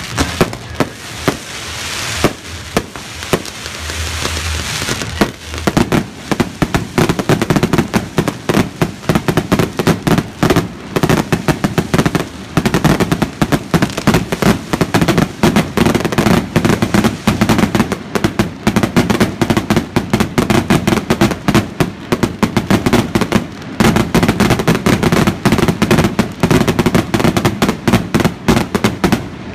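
Fireworks finale: aerial shells launching and bursting in a rapid barrage. The first few seconds are a hissing crackle with scattered bangs; from about six seconds in the bangs come thick and fast, many a second, until they stop at the very end.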